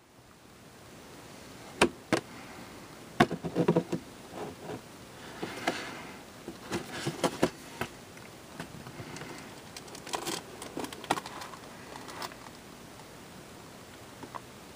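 Cardboard model-kit box being handled: scattered sharp taps and clicks, with short bursts of rustling and scraping against the cardboard.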